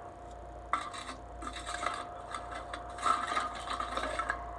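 Irregular rubbing and scraping noises in several bursts, starting about a second in, over a steady tone.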